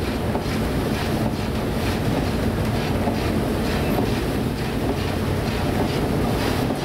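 Storm wind and heavy seas heard from aboard a ship, a dense steady rushing noise with a steady low hum underneath.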